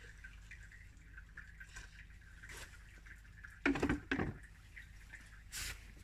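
Engine oil dripping and trickling out of a loosened oil filter housing, with a couple of loud handling knocks about four seconds in and another shortly after.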